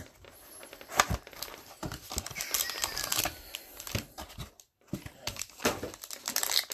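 A cardboard trading-card box opened by hand and its foil-wrapped pack lifted out and handled: crinkling and rustling with scattered sharp clicks and taps.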